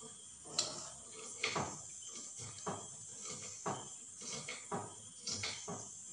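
A metal spoon clinking and scraping against a small pot as melted crayon wax is scooped out: a string of sharp taps, roughly one or two a second.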